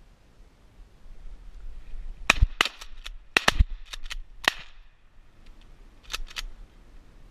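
Rapid volley of shotgun shots, several guns firing about nine times in a little over two seconds, then two more shots about a second and a half later.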